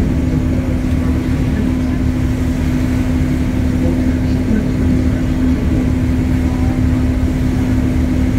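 A river cruise boat's engine running steadily: a constant low rumble with a steady hum that does not change.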